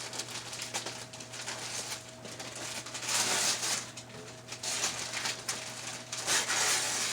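Wrapping paper rustling and tearing in several bursts as a present is unwrapped.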